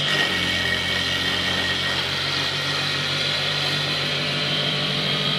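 Homemade wooden cassava-leaf chopper, driven by a small electric motor, running steadily with a low hum and a high whine.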